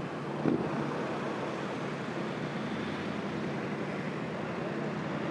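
Steady engine and tyre noise of a car driving slowly in city traffic. There is a short thump about half a second in.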